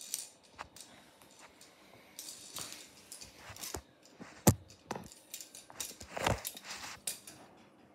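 Small plastic toy clattering and skittering across a hard stone floor as a kitten bats and chases it, with scratchy scuffles of paws and claws. The sharpest knock comes about halfway through, and a burst of scuffling follows around six seconds in.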